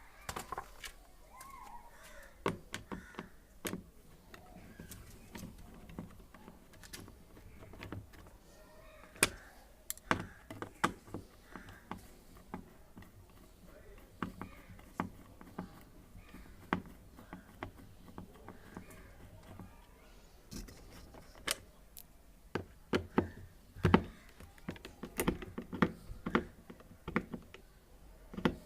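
Irregular clicks, knocks and clatter of hand tools and parts being handled while a washing machine's gearbox is unbolted and lifted out, busiest in the last third.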